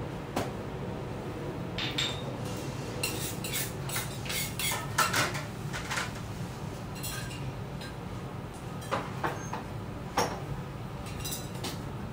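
Metal teppanyaki utensils (spatula and carving fork) clinking and scraping on a steel griddle: a scatter of sharp clinks, busiest in the first half and again near the end, over a steady low hum.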